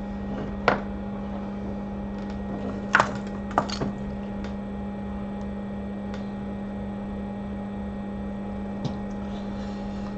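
Steady low electrical hum of workbench equipment, with a few sharp clicks of small tools: one about a second in, a quick cluster of three or four a few seconds in, and one more near the end.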